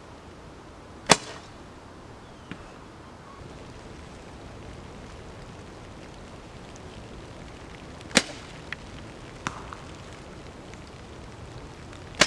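Osage orange recurve selfbow of just under 50 lb draw being shot: three sharp string-release snaps, about a second in, about eight seconds in and at the very end. Fainter knocks follow the first two a moment later.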